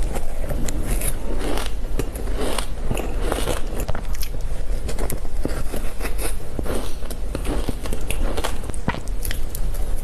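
Close-miked eating of matcha shaved ice: a dense, irregular run of crunches and small crackles as the ice is bitten and chewed, over a steady low hum.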